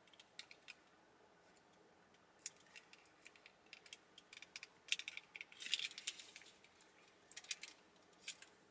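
Scattered small crackles and clicks of food and packaging being handled and eaten, in a cluster through the middle and a few more near the end.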